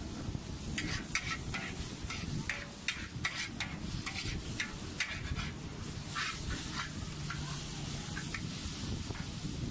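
Long-handled metal spatula scraping and clinking against a wok in quick, irregular strokes as char koay teow with bean sprouts and prawns is stir-fried, the food sizzling underneath.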